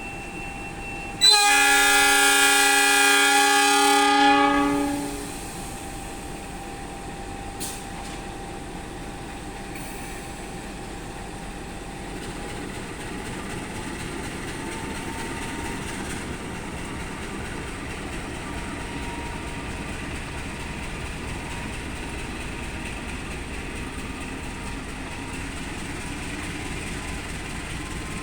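CC206 diesel-electric locomotive departing: a loud chord blast on its horn lasting about three seconds, then the steady running noise of the train getting under way.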